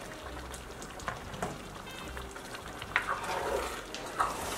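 A pot of kidney-bean stew simmering and bubbling on the stove, with scattered small pops. About three seconds in, a spoon starts stirring through the thick stew.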